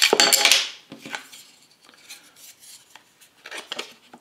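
Handling noise from the MEATER Plus's bamboo charging block as its magnetic lid is worked at: a loud scraping clatter in the first second, then a few faint taps and clicks.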